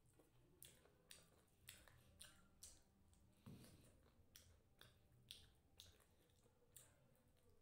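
Faint close-up eating sounds: irregular wet clicks and smacks of chewing, roughly two a second, with one soft knock about halfway.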